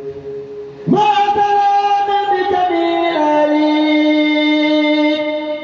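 A man's solo voice chanting a line of an Arabic devotional poem in praise of the Prophet, starting about a second in and holding long drawn-out notes that step down in pitch twice.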